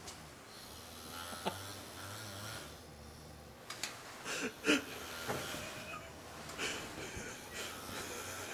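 A man snoring: a low drone for the first two or three seconds, then wheezy breaths with a few sharp clicks.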